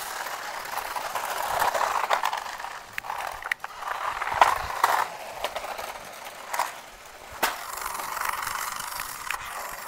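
Two remote-control toy cars running, their small motors and gears whirring as the wheels roll, with several sharp knocks along the way.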